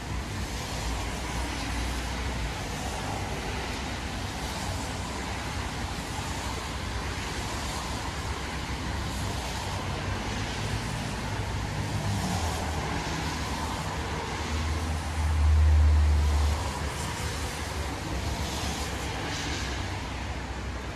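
Heavy rain falling in a steady hiss, with a brief low rumble about three-quarters of the way through that is the loudest moment.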